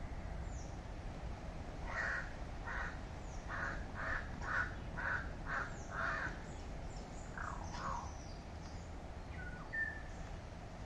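A crow cawing over and over, about two caws a second for some four seconds, then two more caws a little later. A short, thin bird chirp comes near the end.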